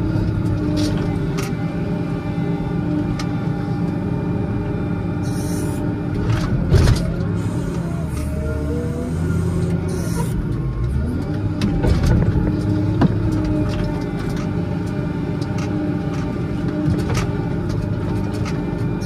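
Case 621E wheel loader's diesel engine running steadily under load, heard from the cab, its pitch shifting as it pushes snow into a pile. Scattered knocks and clunks come from the loader, with a louder knock about seven seconds in.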